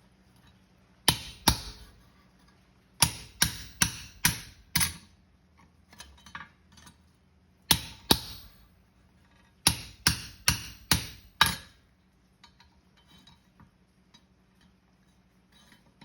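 Hammer blows on a pritchel, driving it through the nail holes of a hot steel horseshoe on the anvil. Sharp ringing strikes come in short runs of two to five, with pauses between, and quieter taps over the last few seconds.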